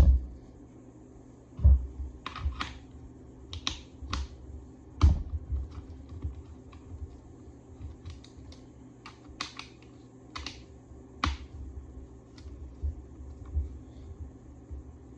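Irregular small clicks and light knocks of hands working a helmet visor's screws and plastic parts loose, a few with a dull thump.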